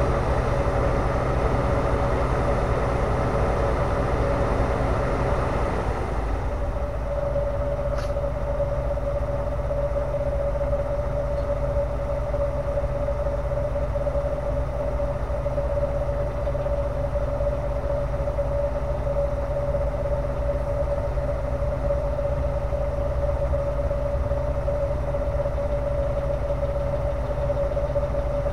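Diesel engine of a Plasser & Theurer MTT track-tamping machine idling steadily, a steady whine over its low hum. A rushing noise on top eases off about six seconds in, and a faint click comes a couple of seconds later.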